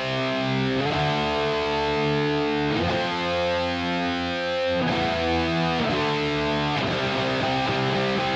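Distorted electric guitar played through the ML800 amp-sim plugin, a model of a Marshall JCM800, on its classic rock preset with the gain up full. Held power chords change every second or two.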